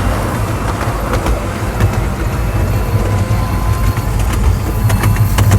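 Steady low rumble of a moving passenger train heard from on board, with a faint thin steady whine and a few sharp clicks near the end.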